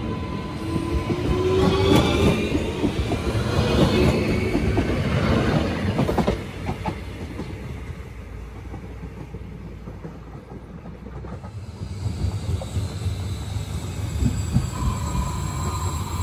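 Renfe Civia class 463 electric multiple unit pulling away, its traction motors whining and rising in pitch over wheel and rail noise. The sound drops off suddenly at about six seconds, and a second Civia is heard approaching, its rail noise and a steady whine growing louder near the end.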